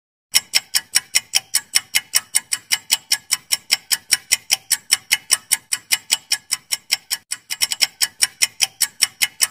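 Countdown-timer ticking sound effect: rapid, evenly spaced sharp ticks, several a second, marking the seconds of answer time on a quiz question.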